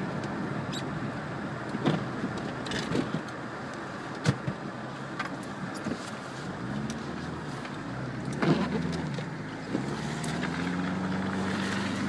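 A 1998 Subaru Legacy Outback driving through snow, heard from inside the cabin: steady road and tyre noise with a few sharp knocks, and its flat-four engine revving up over the second half.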